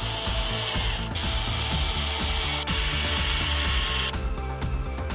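Cordless drill driver running, driving screws into a plastic battery-pack case. It stops briefly about a second in and again just past halfway, then stops about a second before the end. Background music with a steady beat plays underneath.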